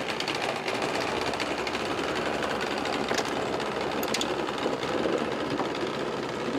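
Outboard motor running steadily with a fast, even chatter, pushing a small metal boat away from the bank.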